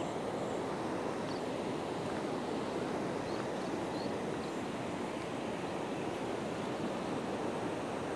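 Steady wind rushing over a phone's microphone, with a few faint high chirps about three to four and a half seconds in.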